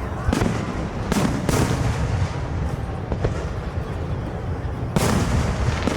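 Aerial fireworks shells bursting: four loud booms with a fainter one in between, over a continuous low rumble of echoing explosions. A pair comes close together about a second in, and the last big boom comes near the end.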